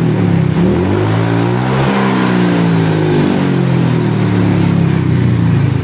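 Honda Vario scooter's single-cylinder engine revved through an aftermarket SKR racing exhaust, its pitch rising for about two seconds, then slowly falling back. No rattle from the exhaust mounting now that its loose bolts are tightened; only body vibration is left.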